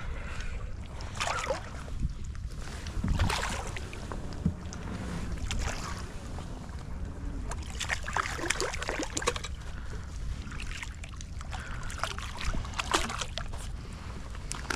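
Wind buffeting the microphone over lapping water, with a hooked small fish splashing at the surface as it is reeled to the kayak, the splashing busiest about eight seconds in.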